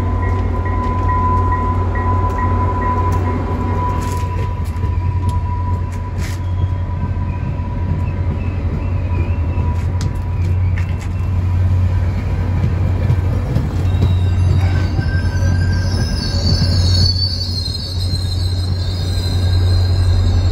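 Commuter train pulling into a station and rolling close past, with a strong steady low diesel hum throughout. A ringing tone fades out in the first few seconds, and high-pitched wheel squeal sets in about three-quarters of the way through as the train slows.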